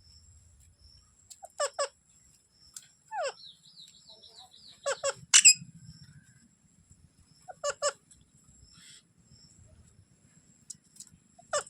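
Indian ringneck parrot calling: short, sharp double calls repeated every few seconds, a quick fluttering warble a few seconds in, and one loud shrill screech about five and a half seconds in.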